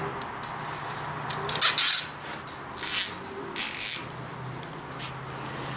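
Nylon zip ties being pulled tight around wiring, ratcheting in several short rasping pulls, with a faint steady low hum underneath.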